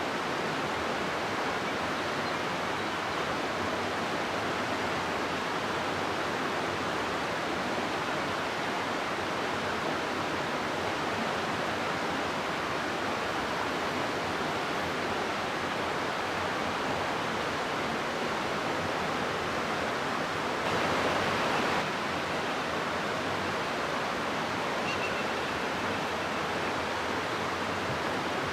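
River water rushing steadily through a rocky gorge, an even rushing noise with a brief swell about two-thirds of the way through.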